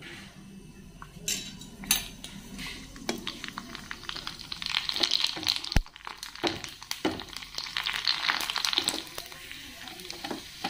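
Pani puri shells frying in hot oil in a small kadai, sizzling as they puff up, with a perforated metal ladle clinking and tapping against the pan. The hiss swells about halfway through and again near the end, and there is one sharp tap of the ladle just before the middle.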